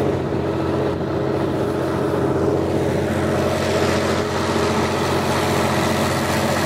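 Perkins six-cylinder 5.8-litre diesel engine of a tracked bog ditcher running steadily.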